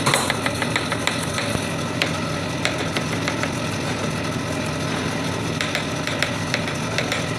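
A steady low motor hum with scattered sharp clicks and knocks over it.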